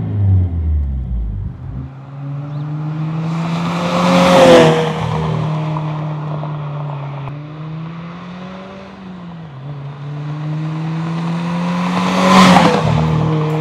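A 2022+ Subaru WRX's turbocharged flat-four running through a muffler-less ETS Extreme catback exhaust with a resonated mid-pipe. The revs fall away over the first two seconds, then the engine holds a steady drone with two louder swells, about four and twelve seconds in.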